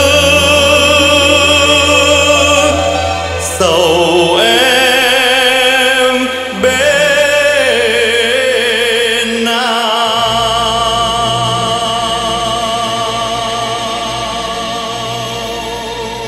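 Closing bars of a Vietnamese ballad: a singer holds long notes with wide vibrato over orchestral backing, the last note sustained from about ten seconds in while the music slowly fades.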